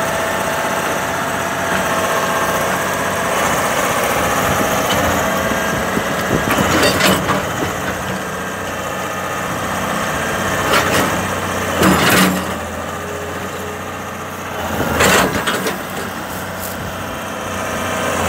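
Hydraulic excavator's diesel engine running steadily, with a few short, louder rushes of noise a few seconds apart.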